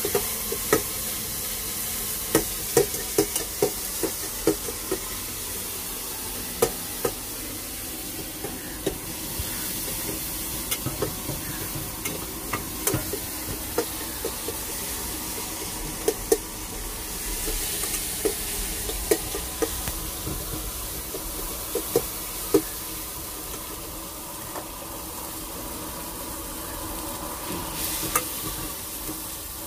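Chicken frying in a pan with a steady sizzle, stirred with a utensil that clinks and knocks sharply and irregularly against the pan.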